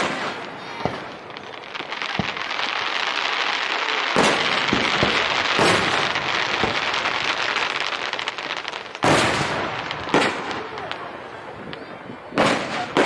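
Aerial fireworks shells bursting overhead, a series of sharp booms at irregular intervals, the loudest about four and nine seconds in. A long dense crackle runs between about two and nine seconds in.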